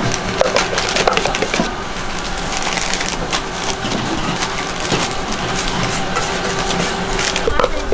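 Many small clicks and knocks of hands-on work at a food stall, over a steady bed of background voices.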